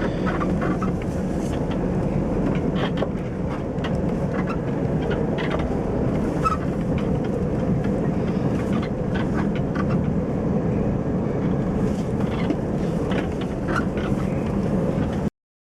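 Lada Niva 21214 heard from inside the cabin while moving: steady road and running noise with repeated short squeaks and creaks from the rear tailgate. The squeak comes from a loose tailgate latch, not the hinges.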